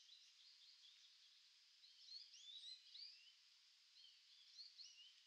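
Faint, scattered small-bird chirps, short notes that rise and fall, over a steady high hiss of outdoor ambience.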